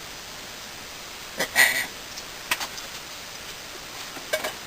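Handling noise while unpacking: a loud short clatter about one and a half seconds in, then a few lighter sharp knocks, over a steady hiss.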